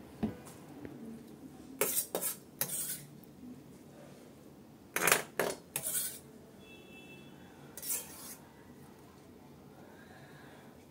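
A kitchen knife knocking and scraping on a wooden cutting board, with bowl clatter: several short bursts of clatter separated by quiet pauses.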